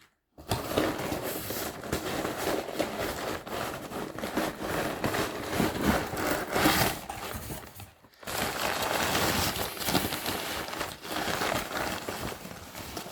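Packaging rustling and crinkling as a parcel is unwrapped by hand, in two stretches with a brief pause about eight seconds in.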